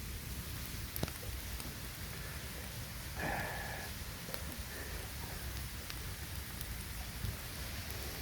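Campfire burning: a steady hiss and low rumble with a few sharp crackles and pops. A brief higher-pitched sound about three seconds in.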